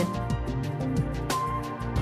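Background music playing, with no voice over it.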